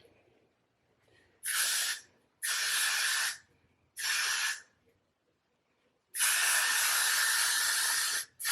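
Aerosol hairspray (Got2b Freeze spray) sprayed in four hissing bursts: three short ones of half a second to a second, then a longer burst of about two seconds near the end.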